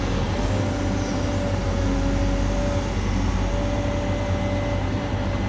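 Engine of a piece of earthmoving equipment running steadily, with a constant hum and a steady whine over it, as it brings in a bucket of dirt to be dumped.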